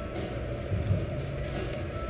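Steady low rumble of a yakiniku table grill's downdraft extractor and restaurant ventilation, with a faint hiss from shrimp cooking on the grate.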